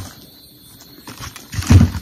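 Plastic snack-sachet strips rustling and crinkling as they are handled, with a short loud burst about a second and a half in.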